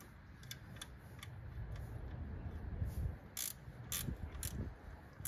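Hand ratchet clicking as the 14 mm idler pulley bolt is undone, with single sharp clicks about every half second, faint at first and louder in the second half.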